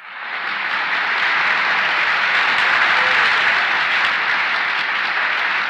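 Concert audience applauding: a full, steady round of clapping that starts suddenly and tapers off a little near the end.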